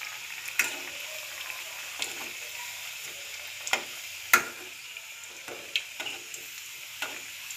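Pal cake pieces deep-frying in oil in a metal kadai, a steady sizzle, while a perforated metal spatula turns them, clicking and scraping against the pan several times; the sharpest click comes about four seconds in.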